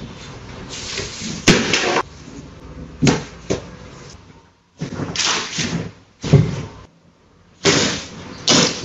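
A plastic basket knocking and clattering on a tile floor as a husky pulls it down and rummages in it: a string of separate knocks and scrapes, several seconds apart.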